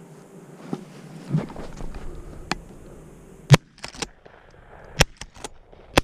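Handling noise from the camera being picked up and moved, with fabric brushing past it: a string of sharp clicks and knocks, the loudest about three and a half seconds in.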